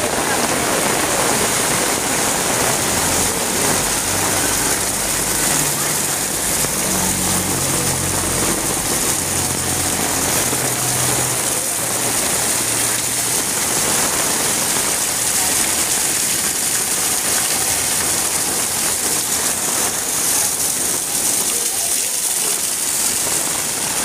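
Torrential monsoon rain pouring down onto a paved lane, a dense, steady hiss. A low rumble comes and goes under it in the first half.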